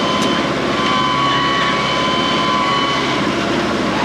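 New Holland WorkMaster 55 tractor's diesel engine running steadily under work, with a steady high whine over the engine sound.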